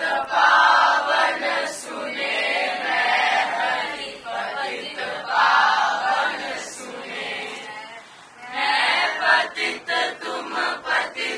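Several young voices singing a Hindi devotional bhajan together, in phrases of about two seconds with short breaks between them.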